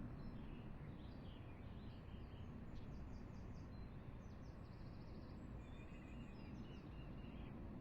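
Steady low outdoor rumble with small birds chirping, including quick rapid trills through the middle.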